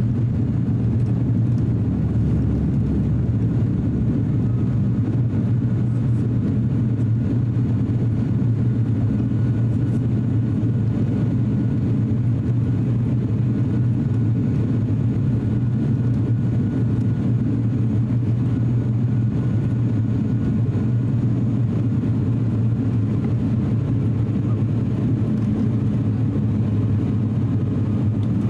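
Cabin drone of an ATR 42-600's twin turboprop engines and propellers at takeoff and climb power, heard from inside the cabin: a steady, loud low hum that does not change.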